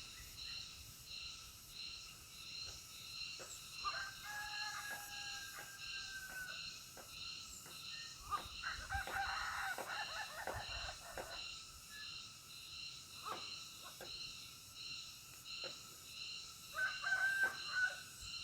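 A rooster crowing, one long held call a few seconds in, with a dense burst of harsh bird calls in the middle and a short one near the end, over a steady pulsing insect drone.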